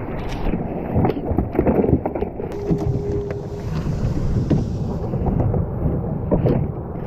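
Wind buffeting the microphone in gusts, over water slapping around a jet ski's hull, with a few light knocks as a tautog is handled in the footwell. A brief steady tone sounds about a third of the way in.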